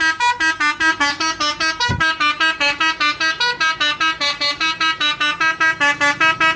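Basuri telolet bus horn, a multi-tone electric horn, playing a fast tune of short, clipped notes at about six a second.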